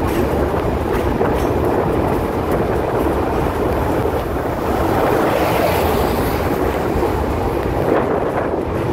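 Drutojaan Express passenger train running on the rails: a steady, loud rumble and rush of wheels and carriages in motion.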